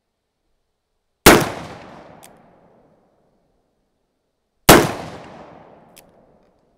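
Two shots from a Pietta 1860 .44 cap-and-ball snub-nose revolver, firing a black-powder load of round balls, about three and a half seconds apart. Each is a sharp report followed by an echo that dies away over about a second, with a faint click about a second after each shot.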